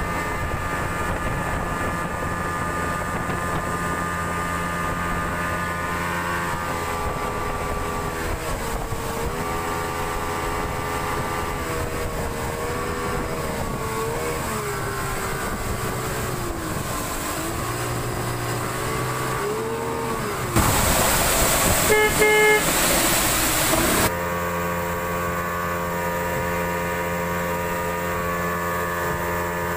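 Yamaha 200 hp outboard motor running at speed on a moving boat. Its pitch wavers up and down through the middle, and there is a loud rushing noise from about 20 to 24 seconds in.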